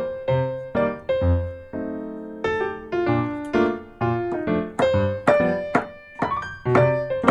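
Background piano music: a melody of short, quickly fading notes, about two or three a second.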